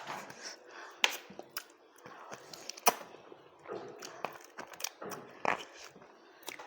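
Close-miked eating sounds of a person chewing rice, with wet mouth noises and a few sharp clicks.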